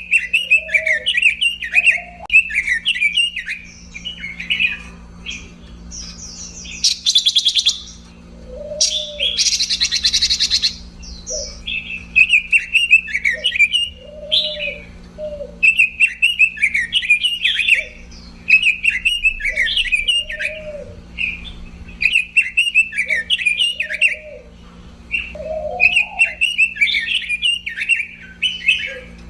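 Pekin robin (red-billed leiothrix) singing a fast warbling song in repeated phrases a few seconds long, with two harsh, buzzy rattling calls about seven and nine seconds in.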